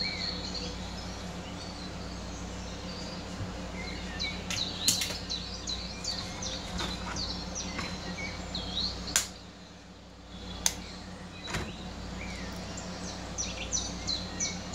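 Small birds chirping over and over over a steady low hum, with a few sharp taps of an egg shell knocked against the rim of a bowl.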